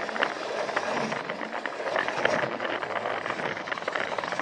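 Battery-powered Plarail toy train running on its plastic track, a steady clattering rattle with frequent small clicks.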